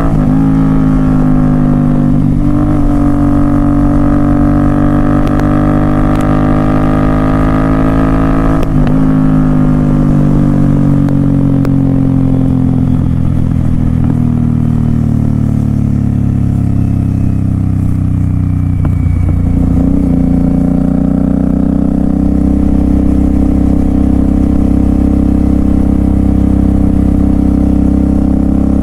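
Royal Enfield Continental GT 650's 648 cc parallel-twin running loud through a Red Rooster aftermarket exhaust: a steady drone whose pitch dips about nine seconds in, sags slowly, and climbs again near twenty seconds.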